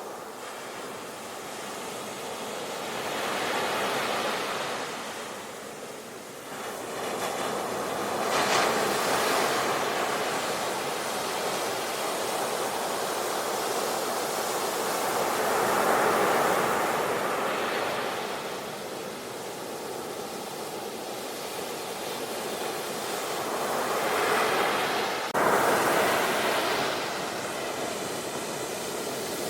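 Sea waves breaking and washing onto a shore: a continuous rushing surf that swells and falls back every few seconds.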